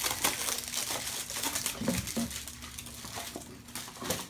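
Plastic and foil packaging crinkling and rustling with many small crackles as a Funko mystery mini figure is unwrapped by hand.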